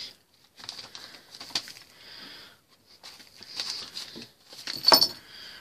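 Kittens scuffling about on newspaper: scattered rustling and scraping with a few sharp clicks, the loudest about five seconds in.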